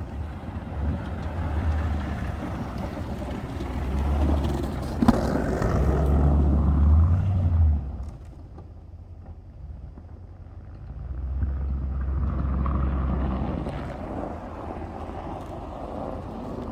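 Toyota Tundra pickup's engine working as it pushes snow with a plow. It runs louder for the first eight seconds, drops off suddenly, then rises again. A single sharp knock comes about five seconds in.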